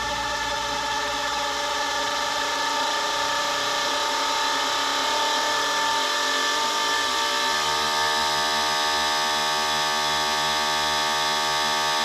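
Electronic dance music in a breakdown. The kick drum and bass drop out, leaving a sustained synth chord with no beat. About seven and a half seconds in, lower held notes join the chord.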